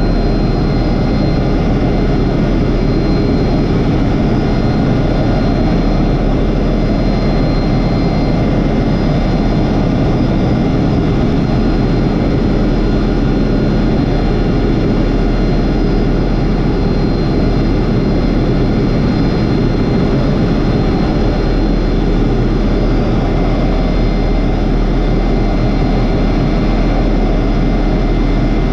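Helicopter in level flight: its engine and rotors run as a loud, even drone with no change in pitch or level, and a faint thin high whine sits above it.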